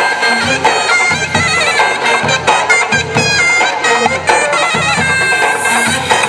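Belly-dance music: a reedy wind-instrument melody with quick ornamented turns over a steady drum beat.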